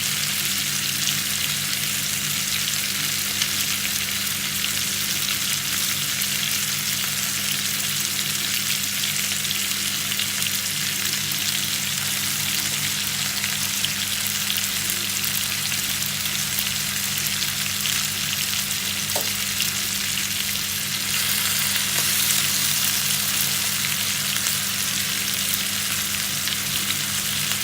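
Chicken and vegetables frying in a pan on a gas stove: a steady sizzling hiss, with a low steady hum underneath.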